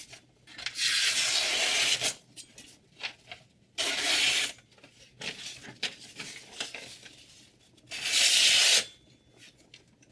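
A freshly sharpened knife blade slicing through paper: three long cuts, about a second in, around four seconds and near eight seconds, with short quieter scrapes between.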